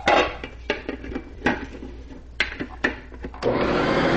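A clear plastic lid clicking and knocking into place on a stainless mixer bowl, several sharp clicks. About three and a half seconds in, the kitchen mixer's motor starts and runs steadily, creaming butter and sugar.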